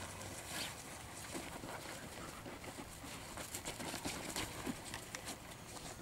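Dobermann puppies scrambling about on a padded quilt: faint, scattered rustling of the fabric and light pattering of small paws.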